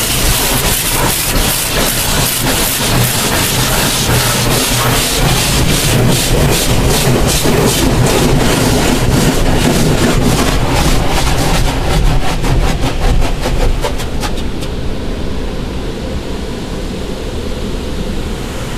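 Automatic car wash heard from inside the car: a loud hiss of water and soap on the body with a rapid run of slaps from cloth brushes that quickens, then about fifteen seconds in the hiss drops away, leaving a lower rumble.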